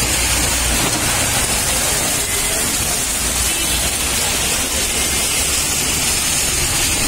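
Heavy rain pouring steadily, a dense even hiss, with the low rumble of traffic passing on the wet road.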